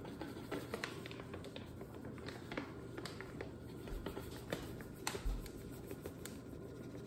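Gluten-free flour being poured from its bag into a glass measuring cup: the bag rustles as it is tilted and squeezed, with scattered light taps and ticks, a few a little sharper near the middle.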